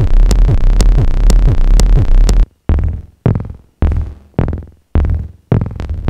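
Make Noise Strega synthesizer playing a dense, loud drone with a thump that falls in pitch about twice a second. About two and a half seconds in it cuts off suddenly, and a new patch follows: a run of separate hits that each die away, again about two a second.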